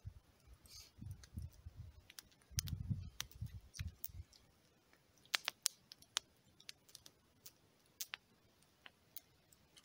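Wood campfire crackling: irregular sharp pops and snaps, with low rumbling during the first few seconds.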